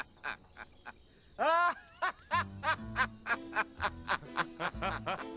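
Lively music with a man laughing heartily, and one loud squeaky cry that rises and falls in pitch about a second and a half in.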